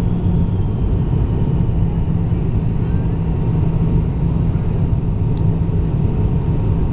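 Airliner cabin noise on the landing approach: a steady low rumble of the engines and airflow, heard from inside the cabin.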